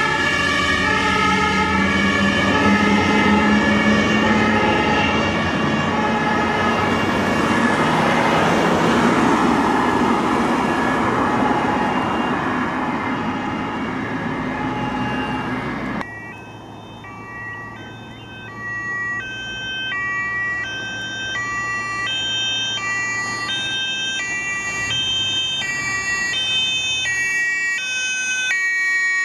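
German fire engines' two-tone sirens (Martinshorn) sounding their alternating high-low pattern, several overlapping, over truck engine and road noise as the vehicles pass. After a sudden cut just past halfway, another two-tone siren sounds more cleanly, with little road noise.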